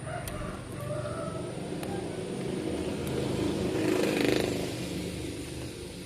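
A motor vehicle passing by: its engine and road noise swell to the loudest point about four seconds in, then fade away.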